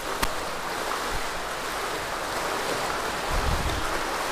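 Pool water sloshing and splashing steadily as several people bounce on one leg and swing the other leg forward and back in waist-deep water, with a brief low thump a little past three seconds in.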